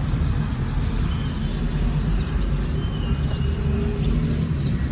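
Steady low rumble of a car's engine and surrounding traffic, heard from inside the car cabin.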